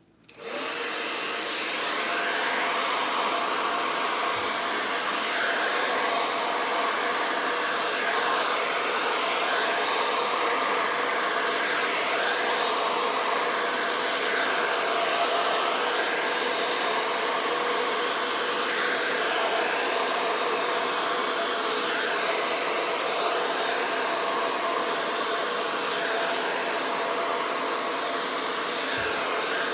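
Handheld hair dryer with a concentrator nozzle switched on about half a second in, then running steadily, blowing air onto wet acrylic paint.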